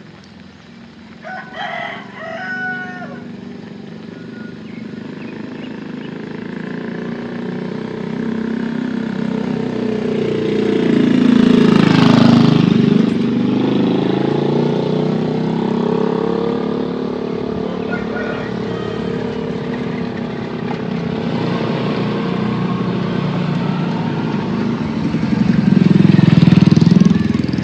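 A rooster crows once, briefly, about two seconds in. A motor vehicle then approaches and passes close by, its engine loudest about halfway through before fading. A second vehicle passes near the end.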